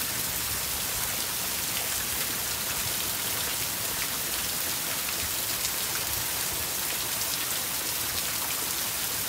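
Heavy rain pouring down in a steady hiss, with scattered sharp ticks of single drops striking close by.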